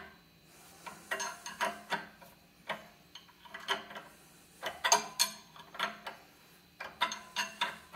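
Metal clicks and clinks of a wrench worked in short strokes on the forcing-screw nut of a bearing puller, in small clusters about once a second, as the puller slowly draws the top spindle bearing off a Powermatic drill press.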